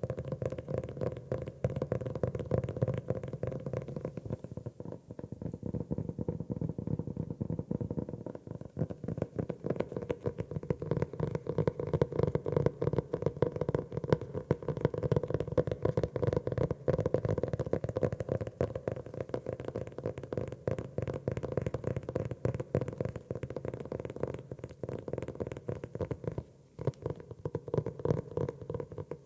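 Rapid, continuous tapping on a notebook's cover, many soft, dull taps a second, with a brief pause near the end.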